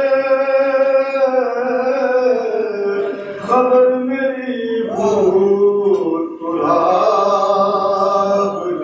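Men chanting a Muharram lament (noha) without instruments, in long drawn-out held notes with slow rises and falls in pitch.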